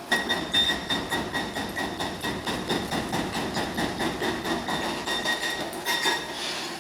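Heavy demolition machinery working: a rapid metallic clanking at about five strokes a second over a steady high-pitched squeal, starting suddenly and stopping about six seconds in.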